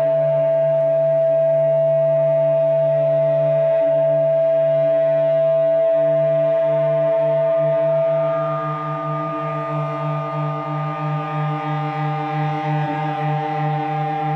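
Live contemporary ensemble music: a slow chord of long sustained tones over a low drone. About eight seconds in, the most prominent held note fades out as a higher note comes in, and the low notes take on a slight wavering pulse.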